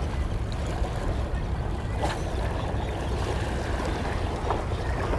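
Steady low rumble of wind and sea washing against a rocky shore, with a single short click about two seconds in.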